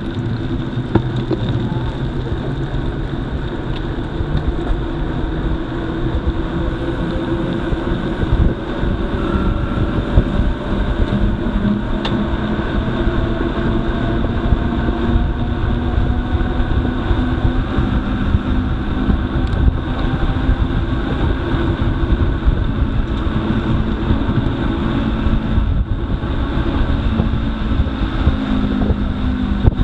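Steady rumble of wind on the microphone and tyres rolling over a rough surface, with a few low steady hums running underneath.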